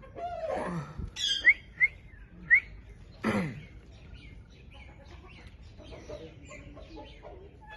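Indian ringneck parrot calling: a long falling call, then three short, sharp rising chirps, then another falling call, followed by softer, scattered chirps.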